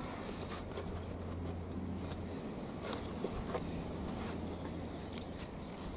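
Tulle netting rustling softly in short scattered bursts as it is handled and wrapped around a metal seed tray, over a low steady hum that fades out about four seconds in.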